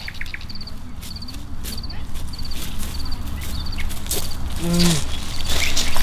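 Tent fabric rustling as a new tent is pulled out of its bag, over high, quick chirps that repeat about twice a second.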